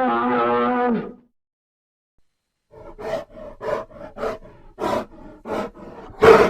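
Bear vocalizations: a drawn-out pitched roar that ends about a second in, then after a pause a run of short, repeated grunting calls, about two a second, the loudest near the end.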